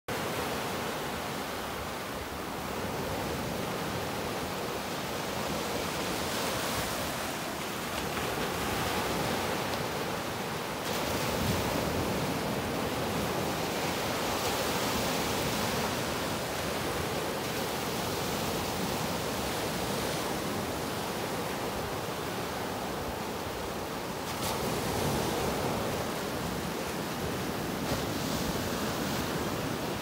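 Ocean surf: waves breaking near the shore and foam washing in over the shallows, a continuous rush that swells and eases every few seconds as each wave comes in.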